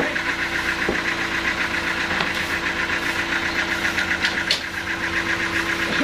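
Band sawmill running steadily, its engine-driven machinery giving a fast, even pulsing over a constant hum, with a brief high-pitched sound about four and a half seconds in.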